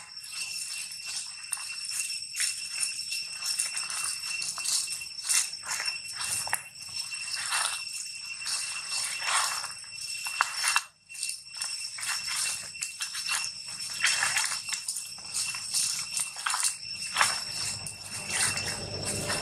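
Dry leaf litter crackling and rustling under footsteps, over a steady high-pitched insect drone. The sound briefly drops out about eleven seconds in.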